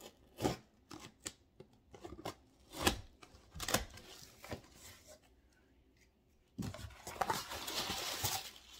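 A taped cardboard shipping box being worked open by hand: a string of short sharp clicks and scrapes against the cardboard and tape, a brief pause, then about two-thirds of the way in a continuous rustling scrape as a flap is pulled up and the wrapping inside is disturbed.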